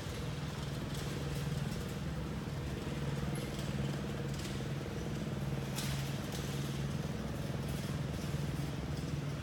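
A steady low hum of a running engine, even and unbroken, with a few faint clicks over it.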